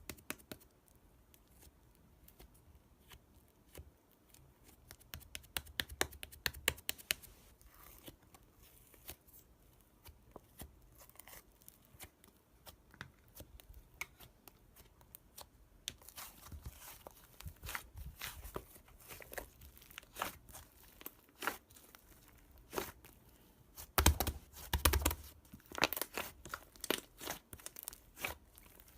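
Close-up crackling and tearing noises: dense runs of sharp clicks in bursts, busiest in the second half and loudest about 24 seconds in.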